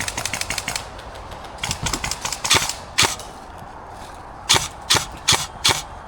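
Airsoft rifle firing: a rapid full-auto burst of sharp cracks for the first second or so, another short burst around two seconds in, then single shots about every half second.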